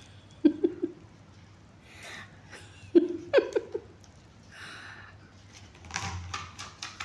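A person laughing in short bursts of quick pulses, twice, about half a second in and again about three seconds in. Near the end a plastic basket rocks and knocks on the stone floor.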